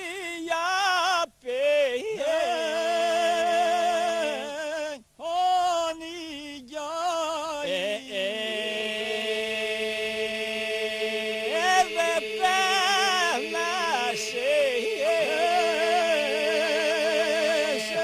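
Albanian Skrapar polyphonic folk song sung by a group of men without instruments. A lead male voice sings an ornamented, wavering line with short breaths. About eight seconds in, the other men come in on a steady held drone beneath it, and a voice keeps ornamenting above the drone.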